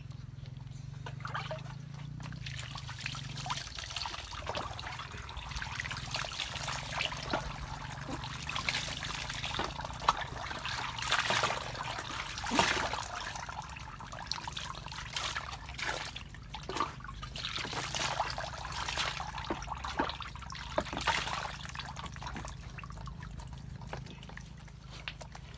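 Water pouring, trickling and splashing in irregular spurts as a small dog is bathed over a plastic basin.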